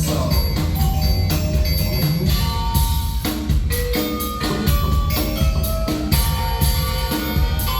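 A live band playing an instrumental passage with no vocals: heavy bass and drums under a run of short, bright, separate notes like a mallet instrument.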